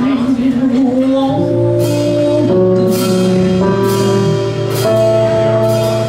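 Jazz band playing live. A held note wavers in pitch for about the first second, then gives way to sustained chords over cymbal and drum strikes.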